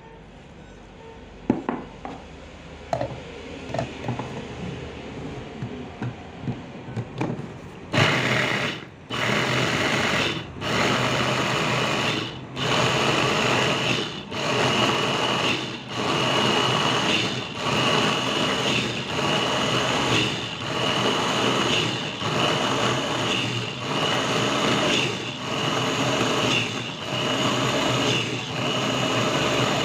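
Electric mini food chopper grinding red chillies and shallots to a paste, its motor running in pulses of about a second and a half with brief stops between them as the lid is pressed and released. It starts about eight seconds in, after a few light knocks.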